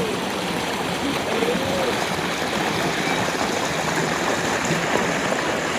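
Stream water flowing steadily, an even rushing noise.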